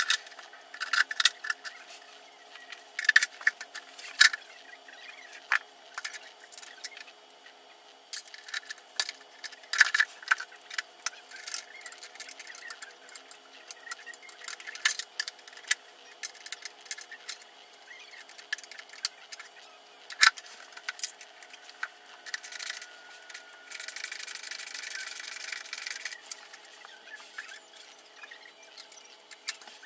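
Irregular clicks, clinks and knocks of metal sit-ski parts being handled and bolted together, with a stretch of scraping about three quarters of the way through.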